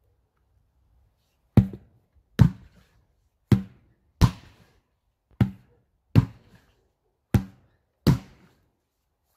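Sledgehammers striking a large rubber tractor tire: eight thuds, starting about a second and a half in and coming roughly one a second.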